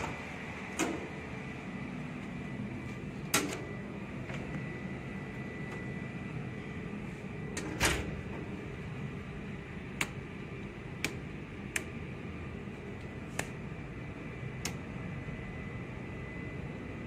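Steady hum of shipboard machinery and ventilation with a thin, steady high whine, broken by sharp clicks and knocks: a door's lever latch clicking soon after the start, a louder knock about eight seconds in, then a run of lighter clicks about once a second.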